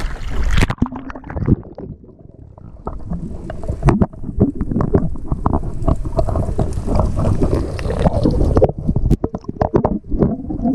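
Water splashing over a GoPro camera as it goes below the sea surface, then muffled underwater sloshing and low rumble with many small clicks and pops, heard from the camera underwater.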